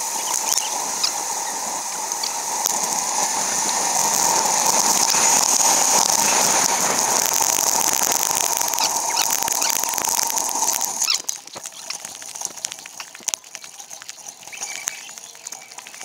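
Fast-forwarded ride sound from a moving bicycle: steady wind and road noise, sped up into a high, rapid pattering. It drops off sharply about eleven seconds in, leaving a quieter run of fast clicks and ticks.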